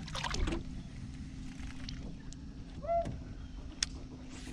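A bass splashes as it is let go into the water, then a steady low motor hum with a few light clicks.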